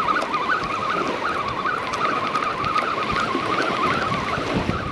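Fishing reel being cranked to bring in a hooked fish, a whirring whine that wavers up and down with each turn of the handle, over a steady hiss of wind and surf.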